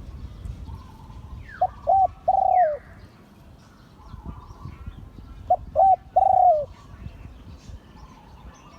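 Spotted dove cooing: two phrases about four seconds apart, each a short note, a quick double note and a longer drawn-out coo that drops at the end. Faint chirps of other birds sound between them.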